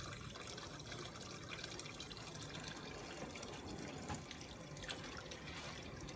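Tap water running steadily into a stainless steel sink partly full of water, with a couple of small splashes about four and five seconds in as plastic tubing is rinsed under the stream.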